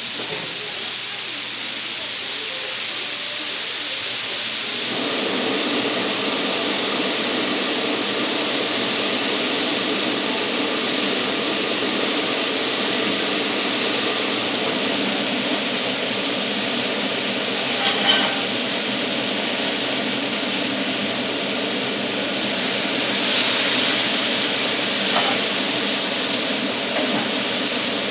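Oyster blade steak sizzling as it fries, a steady hiss, with a steady hum joining about five seconds in. A brief clatter sounds about eighteen seconds in and again near twenty-five seconds.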